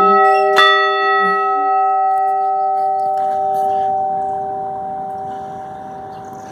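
Old 30-inch cast iron chapel bell, already ringing from a stroke just before, struck again about half a second in, then ringing on and slowly fading, its higher overtones dying away first.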